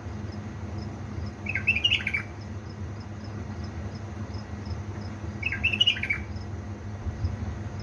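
A bulbul sings two short warbled phrases about four seconds apart, over a steady low hum and a faint high ticking about twice a second.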